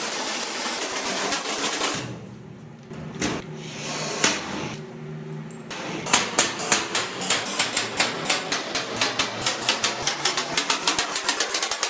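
Workshop tool noise: a steady rasping for about two seconds, a quieter stretch with a few single knocks, then a run of sharp taps that starts about halfway and speeds up to several a second.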